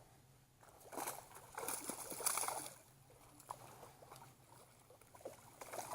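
Brief splashing and sloshing of water, starting about a second in and lasting under two seconds, with a shorter splash near the end.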